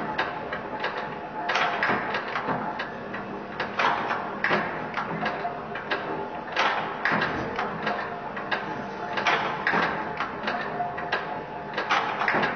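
Factory machinery of a power press at work: a stream of sharp clanks and knocks, one to three a second at uneven spacing, over a low steady hum.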